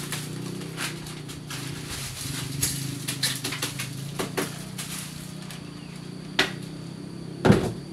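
Scattered light knocks and clicks over a steady low hum, with a sharper knock and then a louder knock near the end.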